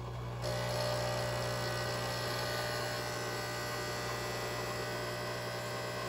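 Nespresso capsule machine's vibratory pump buzzing steadily, running without moving any water because of an air lock in the pump. It gets a little louder and brighter about half a second in.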